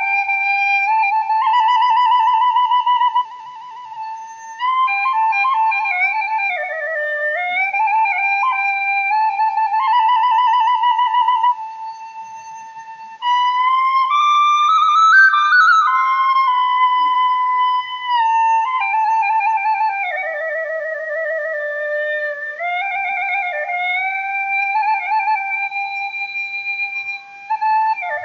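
Background music: a slow solo melody on a flute-like wind instrument, its notes held with a wavering vibrato, broken by two short pauses.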